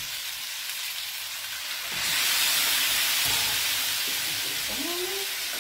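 Pasta and guanciale frying in an aluminium pan, sizzling steadily. About two seconds in, pasta cooking water is added and the sizzle jumps louder and hissier as the water boils off into steam.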